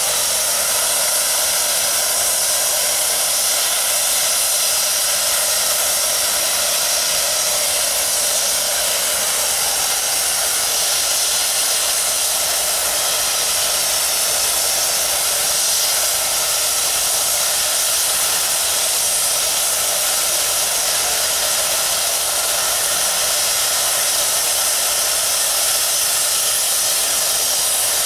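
Nickel Plate Road 765, a 2-8-4 Berkshire steam locomotive, venting steam in a loud, steady hiss.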